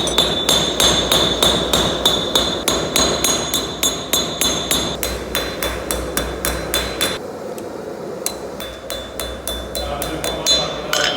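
Blacksmith's hammer forging steel on an anvil, a steady run of about three blows a second, each with a high metallic ring. The blows pause about seven seconds in, then resume more lightly, with a few harder strikes near the end.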